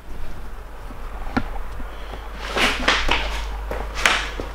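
Footsteps and scuffs of someone walking onto new wooden floorboards: a sharp tick about a second and a half in, then a few short scuffing sounds, over a steady low hum.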